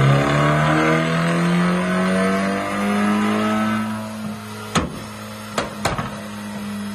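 BMW Z4 20i's turbocharged 2.0-litre four-cylinder, breathing through a valvetronic catback exhaust with catless downpipes, pulling on a chassis dyno with its revs climbing steadily for about three seconds. About four seconds in the throttle lifts and the sound drops. Three sharp pops follow near the end.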